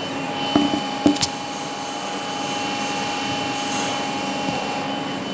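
Steady workshop machinery hum with a thin whine, broken by two sharp knocks about half a second and a second in.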